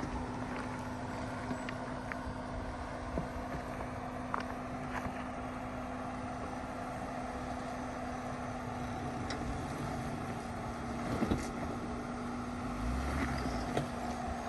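A vehicle engine running at a steady speed with one constant tone, and a few light clicks and knocks over it.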